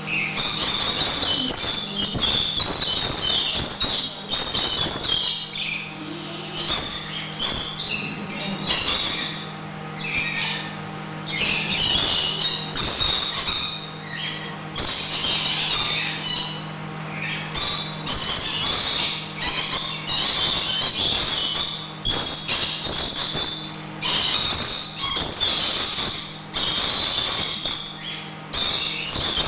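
A flock of rainbow lorikeets screeching and chattering in shrill, high-pitched bursts that keep repeating with short pauses, over a steady low hum.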